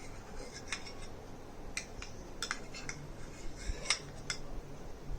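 Light, irregular clicks of a spoon against a small bowl as lemon seeds are fished out of a mixture of lemon juice, glycerin and rose water.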